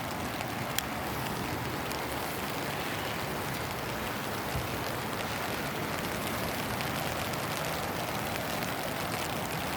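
Steady hiss of water: rain falling and the flood-swollen river rushing.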